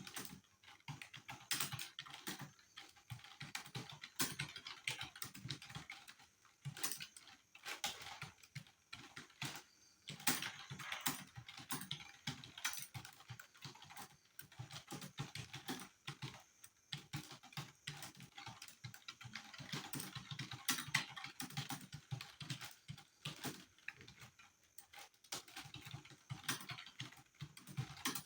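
Computer keyboard being typed on quickly and continuously, a dense run of key clicks with only brief pauses, at a pace of about 43 words a minute.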